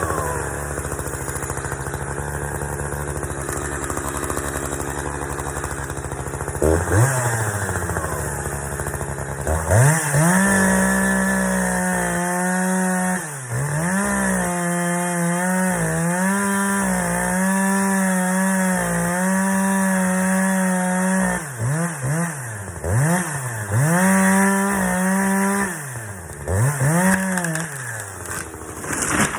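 Chainsaw running at a low steady speed, then revved up about ten seconds in and held at high throttle while cutting a tree. Its pitch drops and climbs back several times as the throttle is eased and reopened, with quick revs near the end.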